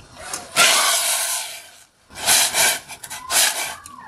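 Cut baby octopus sliding from a ceramic bowl into a steel pot of water for blanching, a rush of about a second and a half, then wooden chopsticks stirring and scraping through the octopus in the pot in short repeated strokes.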